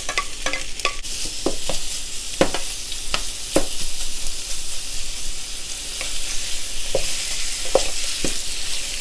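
Chicken pieces sizzling in hot oil with onion and garlic in a thin metal pot, with a steady hiss. A wooden spoon stirs them, knocking against the pot now and then.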